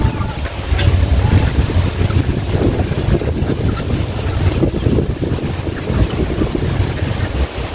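Wind buffeting the microphone: a loud, uneven low rumble throughout.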